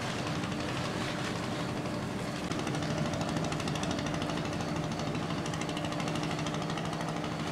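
Steady mechanical drone of a cruise ship's machinery running during a docking manoeuvre: a low hum with a fast, even pulsing rattle over it.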